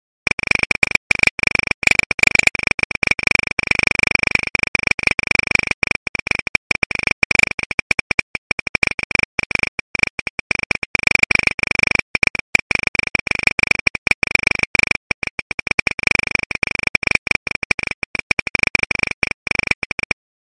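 Electronic crackling: dense, irregular clicks over a steady high-pitched tone, starting abruptly and cutting off suddenly near the end.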